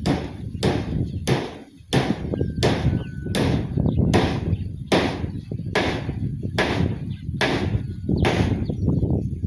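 A steady run of sharp strikes, about one every three-quarters of a second, over a continuous low rumble.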